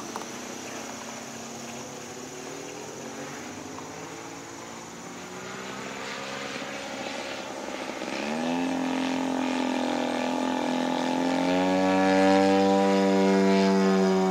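Radio-controlled aerobatic airplane's motor and propeller droning, faint at first. About eight seconds in its pitch rises sharply, and it grows louder and holds a steady high note through the last few seconds.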